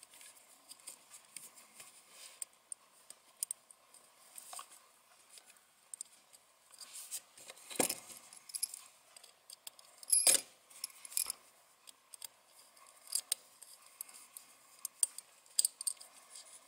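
Scattered small clicks and taps of wires and a small circuit board being handled, as stripped wires are pushed into screw terminal blocks and a small screwdriver is set on the terminal screws. Two louder knocks come about 8 and 10 seconds in.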